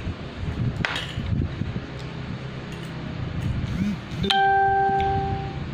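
A single clear metallic ding about four seconds in, ringing on for about a second, over a steady low rumble.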